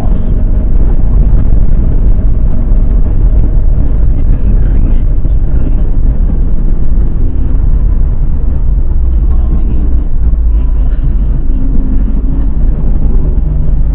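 Car engine and tyre noise heard inside the cabin while driving: a steady, loud, deep rumble with no distinct events.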